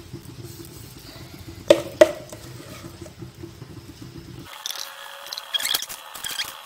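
A silicone spatula knocks twice against a metal pukis mould as batter is spooned into its cells, over a low steady hum. In the second half, high squeaky chirps.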